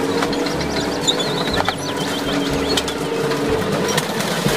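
Tracked tank running as it climbs onto a minivan, its tracks clanking and the car's body creaking and crunching under it, over a steady engine tone.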